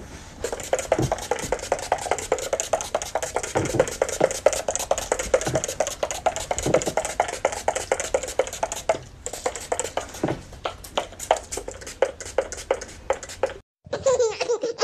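A small handheld plastic container being shaken hard, rattling in a fast, dense run of clicks, with a brief pause about nine seconds in, before it cuts off near the end.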